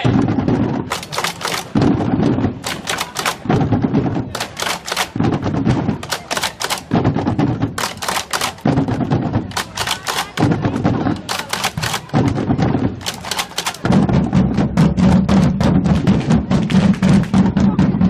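Marching drum band playing a repeating pattern of deep drum beats with clusters of sharp cracking strokes, breaking into dense, continuous drumming about fourteen seconds in.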